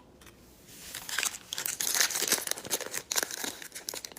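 Crinkly packaging being handled and torn open by hand, starting about a second in with dense, irregular crackling.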